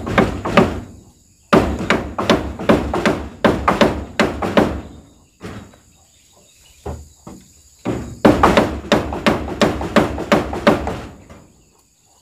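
Hammer driving nails: rapid runs of blows, about four a second, with a lull around the middle. A steady high insect trill runs underneath.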